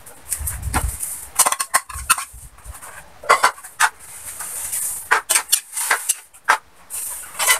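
Metal spoon scraping and clinking against an aluminium wok while chopped banana pulp is stirred, in short irregular strokes.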